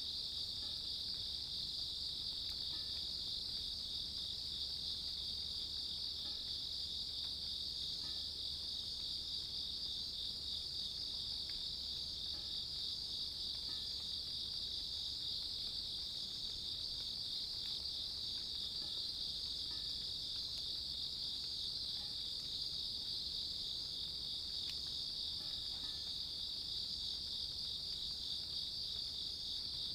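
Grass insects, crickets, chirring together in one unbroken, high, finely pulsing trill at a steady level.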